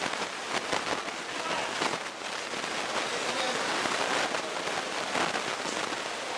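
Crowd of fight spectators shouting: a steady, crackling wash of noise with scattered voices.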